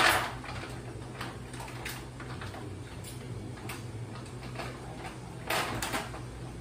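Food-preparation handling noises at a kitchen counter: a sharp knock at the start, scattered light clicks, and a burst of rustling about five and a half seconds in, over a steady low hum.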